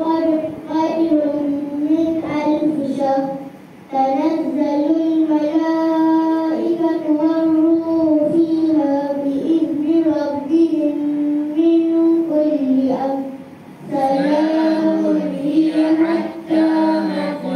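Children's voices chanting Quran recitation in a melodic, drawn-out style, with short pauses for breath about four seconds and thirteen and a half seconds in.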